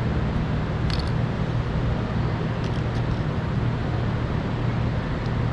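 Steady low mechanical hum of a running appliance, with a few faint light clicks about a second in and again near three seconds.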